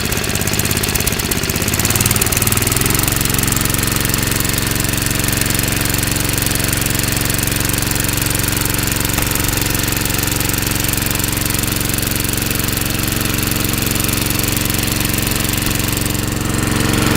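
Snowblower engine running just after a cold start with the choke off, warming up. Its speed picks up about two seconds in as the throttle is eased up, then it runs steadily.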